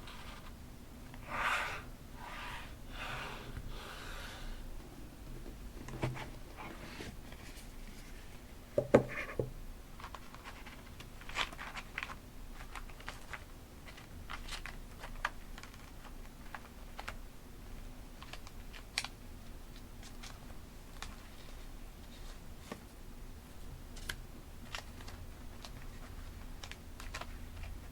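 Paper and journaling supplies handled at a desk: paper rustling for the first few seconds, a sharp knock about nine seconds in, then a scatter of light clicks and taps.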